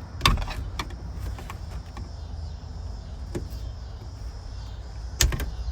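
Plastic push-pin trim clips being pried out of a truck's interior panel: a few sharp plastic clicks and snaps, the loudest about a third of a second in and again just after five seconds, over a low steady hum.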